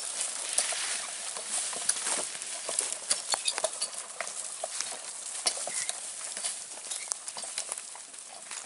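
A yoked bullock team walking through tussock grass: a busy run of hoof falls, rustling and sharp clicks and clinks from the team and its gear, getting quieter near the end as the team moves off.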